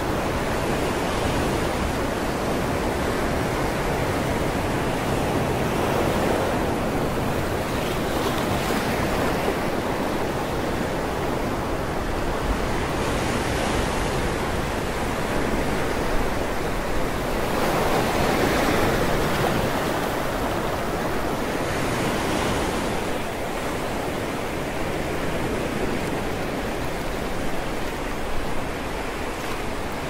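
Sea waves breaking and foaming against a rocky shore: a continuous wash of surf that swells every few seconds as each breaker hits, loudest about eighteen seconds in.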